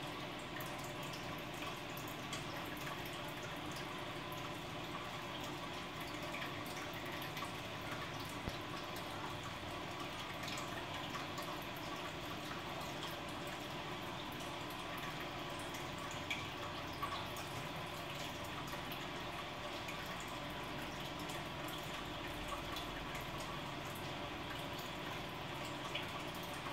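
Aquarium air curtain bubbling: a steady stream of air bubbles rises and bursts at the water surface, a constant bubbling and trickling with scattered small drips and pops.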